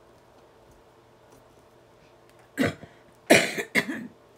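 A woman coughing three times in quick succession, beginning a little past halfway; the second cough is the loudest.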